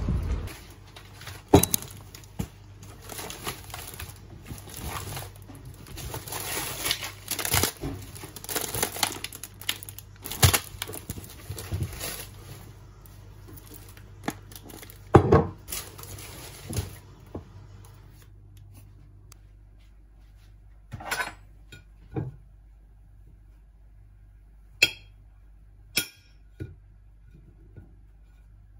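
Rustling and crinkling of packaging as groceries are handled, then several separate sharp knocks, like a jar or plate being set down on a hard counter.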